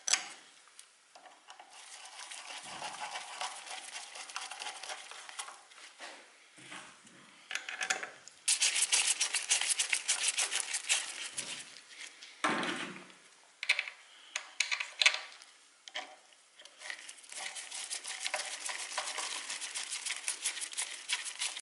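Metal tools scraping, clicking and tapping against a carburetor as its fuel inlet and throat are probed and cleaned with a thin metal rod. There are bursts of rapid scratching about eight seconds in and again over the last few seconds, with scattered single taps between.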